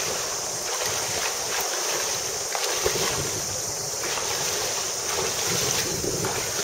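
Steady rush of river water, with wind rumbling irregularly on the microphone.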